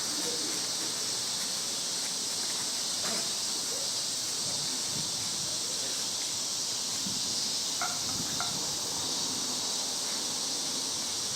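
A steady, high-pitched insect chorus, a continuous dense shrill with no breaks.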